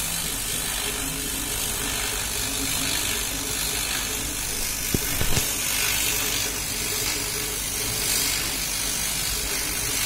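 CO2 laser cutter at work: the cutting head's stepper motors hum in short tones that keep shifting in pitch as the head traces the stencil letters, over a steady hiss. A few sharp clicks come about five seconds in.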